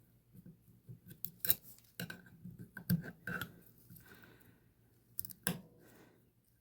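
Small metal engine parts and hand tools clinking and tapping irregularly as they are handled, with the loudest knocks about a second and a half, three seconds and five and a half seconds in.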